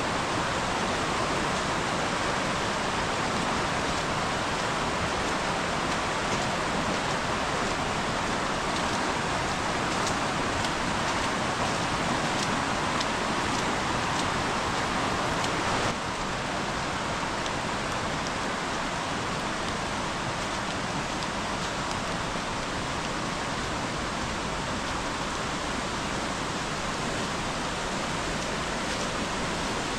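A fast-flowing river in spate: a steady rush of running water that drops slightly in level about halfway through.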